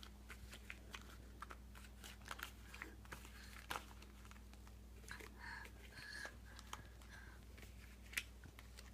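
Near-quiet room with faint, scattered light clicks and rustles of small objects being handled, and a faint murmur about five to six seconds in.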